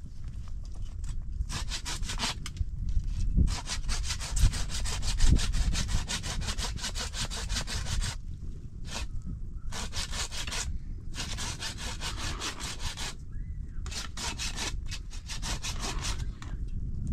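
Hand saw cutting through wood with steady back-and-forth strokes, pausing briefly about eight and thirteen seconds in before carrying on.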